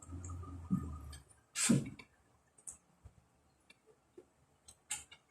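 Eating sounds: scattered small clicks and smacks from a mouth, with one louder smack about a second and a half in.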